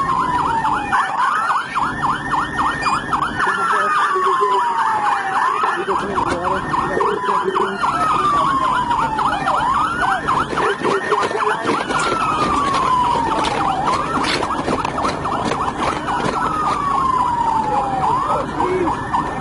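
Police car siren wailing, rising and falling about every four seconds, with a faster warbling siren tone sounding over it.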